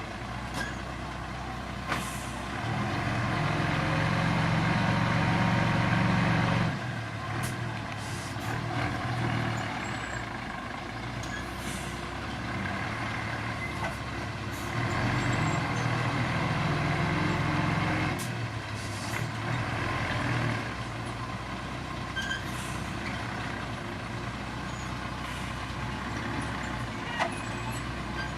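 Heavy diesel engine of road-building machinery running, twice rising to a louder, harder pull for a few seconds, with short air hisses now and then.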